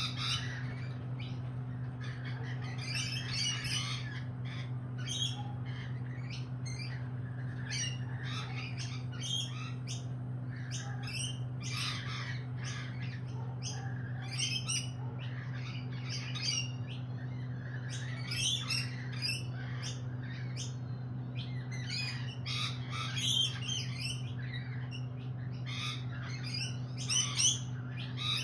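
Lorikeets screeching and chattering in many short, overlapping calls, over a steady low hum.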